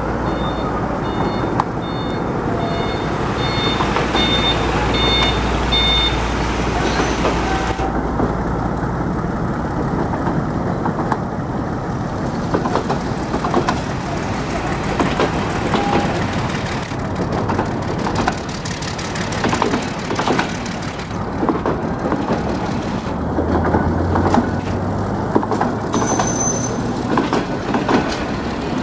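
Diesel passenger train pulling out of the station: a low steady engine drone with an evenly repeating electronic beep for the first several seconds, then a long run of clanks and knocks as the wheels roll over the rail joints.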